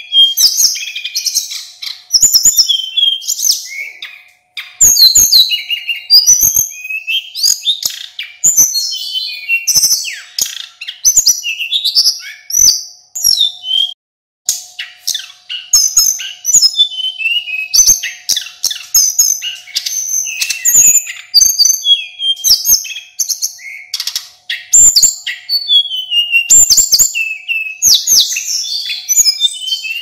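Male snowy-browed flycatcher (sulingan gunung) singing a fast, varied, nearly unbroken run of high, thin whistled phrases. There are brief pauses about four and fourteen seconds in.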